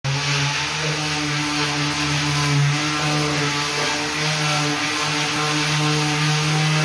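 A workshop machine running with a steady hum, its pitch holding level with only brief dips.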